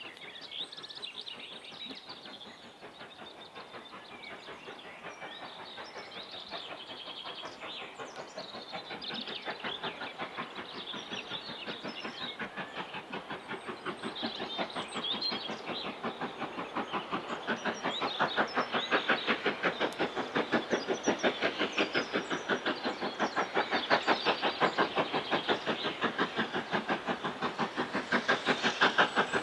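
LNER B12 inside-cylinder 4-6-0 steam locomotive working a train, its chuffing exhaust beats coming fast and even and growing steadily louder as it approaches. Birds chirp in the first few seconds.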